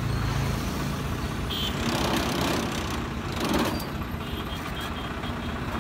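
Tractor diesel engine idling steadily, a low even rumble.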